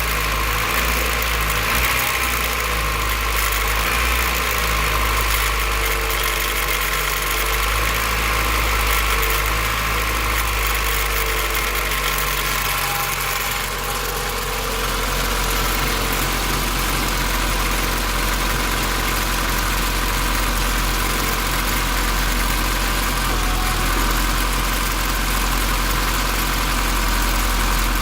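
Honda B16 four-cylinder engine idling steadily after a cold start, with the rattle that the owner traces to the distributor; a replaced distributor and a valve lash adjustment have not cured it.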